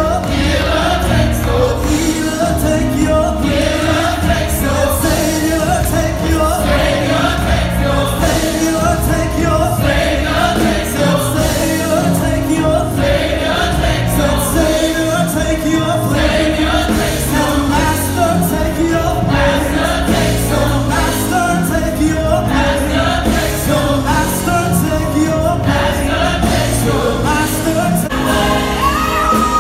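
Live gospel worship singing: a praise team of several singers on handheld microphones singing together over a sound system, with a high note held near the end.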